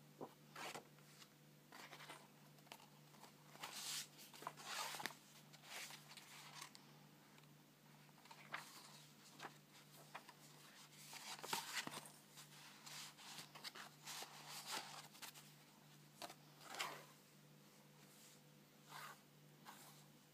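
Paper and card pages of a handmade journal being turned and handled: soft, scattered rustles and swishes with a few small clicks, over a faint steady low hum.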